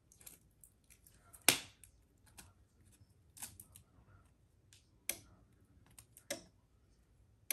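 Tape and paper being handled at a work table: scattered sharp clicks and light taps, the loudest about a second and a half in.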